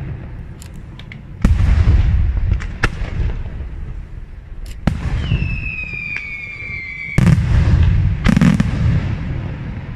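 Aerial fireworks shells bursting with deep booms, about four heavy bursts with sharper cracks between them. From about five seconds in a long whistle sounds for two seconds, sliding slightly down in pitch, and is cut off by the next burst.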